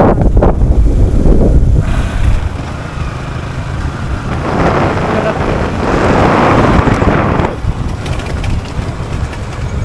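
Motorcycle riding a rough dirt track, its engine rumble mixed with wind buffeting the microphone. The buffeting is heaviest in the first two seconds, and a broad rushing noise swells from about four seconds in to past seven.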